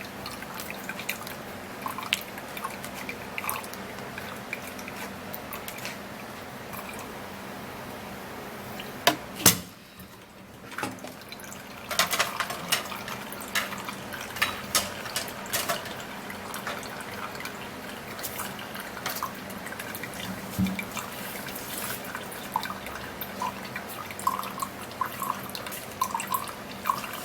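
Liquid dripping and trickling into a cup as honey and lime juice are added to the fruit juice, with many small clicks and ticks of kitchen handling and one louder knock about nine seconds in.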